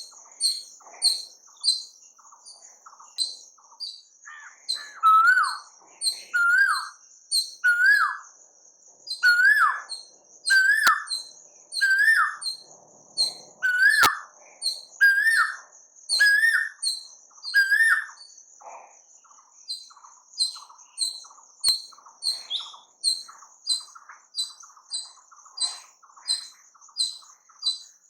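Several birds singing. One bird repeats a loud short call that rises and then drops, roughly every second and a half, and stops about two-thirds of the way through. Others keep up quick high chirps and a continuous thin trill.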